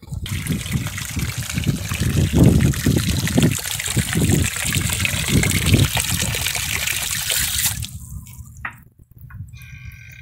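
Water pouring from a pipe into a concrete cattle water trough, splashing steadily. It stops about eight seconds in.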